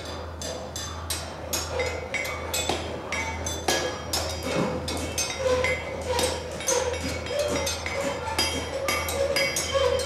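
Blacksmith's hammer striking iron on an anvil while horseshoes are forged: irregular ringing metallic clinks, a few blows a second, over a low steady hum.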